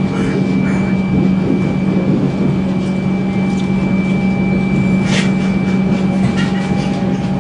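Train carriage interior while the train runs: a steady, loud drone with a constant electrical hum and a fainter high whine, and a short hiss about five seconds in.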